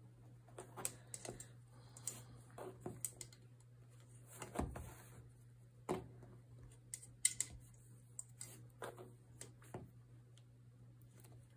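Irregular light clicks and brief rustles of a weaving hook being worked over and under cotton loops on a metal potholder loom. A faint steady low hum runs underneath.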